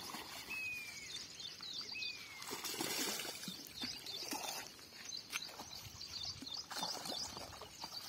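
Birds calling: two short whistles falling in pitch in the first couple of seconds, with scattered chirps throughout and a few soft clicks.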